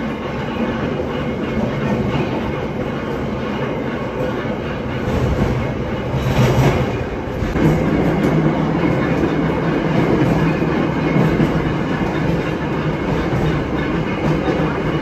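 Heritage electric trolley car running along the track, heard from inside the car: steady rumble of the steel wheels with clacking over rail joints. A brief louder rush comes about six seconds in, and the running gets louder from about eight seconds on.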